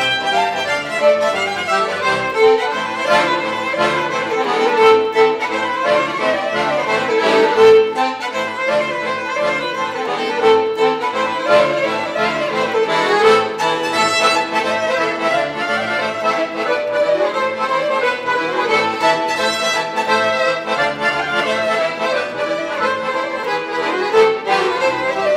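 A violin and an accordion playing a piece together as a duo, without a break.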